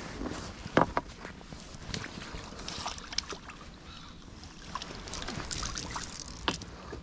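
Landing net being dipped in the lake and lifted out: water splashing and dripping from the mesh, with a few sharp knocks, the loudest about a second in.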